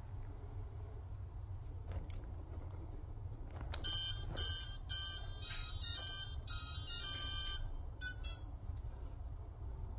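The brushless motors of a small FPV drone (T-Motor 1103 11000KV) playing the ESC start-up tune as the battery is plugged in: about four seconds in, a run of high beeps stepping through different pitches for about four seconds, then two short beeps. The tune signals that the ESCs have powered up and initialised.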